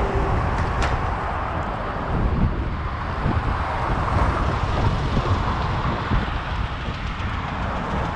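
Steady wind and road noise while riding a bicycle, with a gusty low rumble of wind on the microphone. A faint click about a second in.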